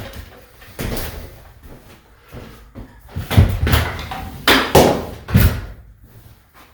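Knocks and clunks from an old plastic smoke alarm being handled as it comes free of its ceiling mount. A few light knocks come first, then a louder run of four or five clunks between about three and five and a half seconds in.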